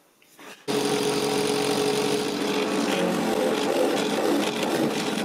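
Bench drill press running, its bit boring a hole into a pine board. The machine sound cuts in abruptly about a second in, after near silence, and then holds steady.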